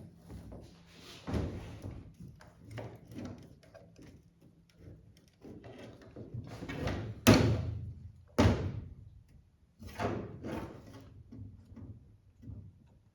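Parts and tools being handled on a workbench while a pedal assembly is put together: irregular clunks, scrapes and knocks, with two sharp knocks a little past halfway, about a second apart.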